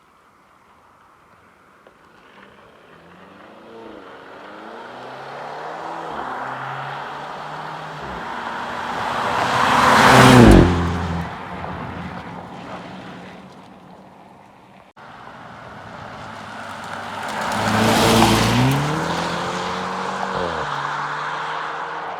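Mercedes-Benz E-Class Coupe with its valve exhaust open in Sport+ driving past twice. Each time the exhaust note builds as the car approaches, is loudest as it goes by, and drops in pitch as it pulls away.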